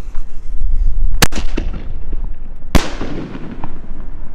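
6-inch aerial firework shell (Red Apple Calavera 'sugar skull' shell) going off: two sharp bangs about a second and a half apart, the second followed by a long rolling echo.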